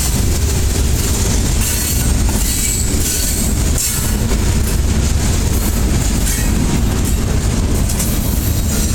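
Freight train cars rolling past, a steady, loud rumble of steel wheels on the rails.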